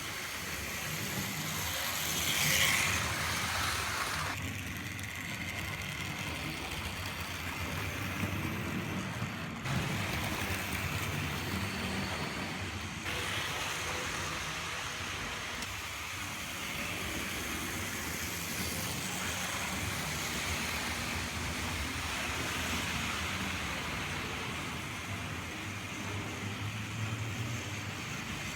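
Vintage Triang Hornby OO-gauge model locomotives running on the track: a steady rumble of electric motor, gears and wheels over the rails, briefly louder about two and a half seconds in.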